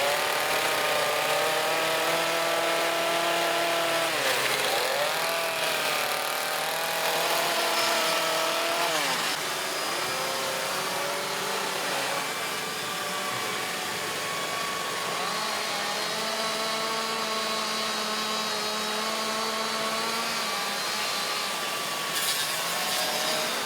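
Chainsaws running hard while carving wood, their engine note dropping and climbing back twice as the throttle is eased off and opened up again. More than one saw is heard at once.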